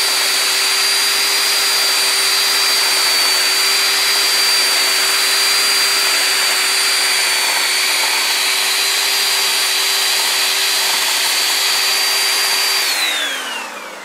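Two-stroke chainsaw held at high revs at a steady pitch while its bar carves into a wooden post. Near the end the throttle is released and the engine speed drops away in a falling whine.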